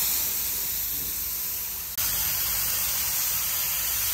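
Gravity-feed paint spray gun hissing steadily as it sprays blue paint onto a ute's panels, with a brief break about two seconds in.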